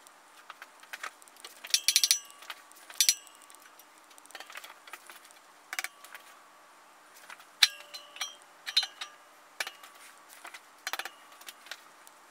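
Metal smokebox being worked by hand onto a model traction engine boiler: irregular metallic clinks and knocks with a brief ring, the loudest about two, three and seven and a half seconds in.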